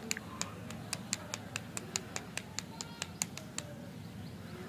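A rapid run of sharp clicks, about four or five a second, thinning out near the end, over a steady low hum.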